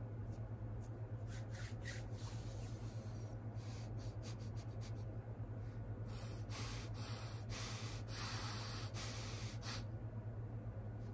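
A string of short, hissy rustling noises close to the microphone, the longest and loudest in the second half, over a steady low electrical hum.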